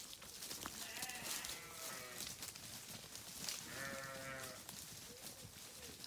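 Sheep bleating: a call about a second in, a louder and longer bleat around four seconds in, and a couple of short calls near the end.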